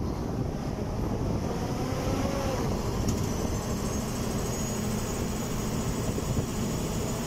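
A vehicle driving along a road: steady engine hum and road noise. A faint high whine joins about three seconds in.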